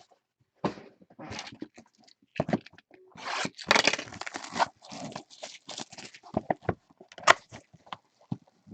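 Cardboard trading-card retail boxes being torn open and handled, with wrapped packs pulled out and set down: irregular scraping, tearing and crinkling with a few sharp clicks.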